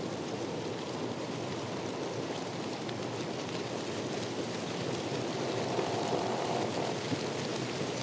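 Steady water noise, an even rushing hiss with faint ticks of drops in it, getting slightly louder about five seconds in.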